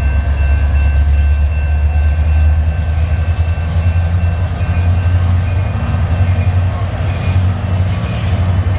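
Diesel-electric freight locomotives, an EMD SD75I and a GE C44-9W, running loud as they pull a freight train, a heavy steady low rumble with a few thin steady high whining tones over it.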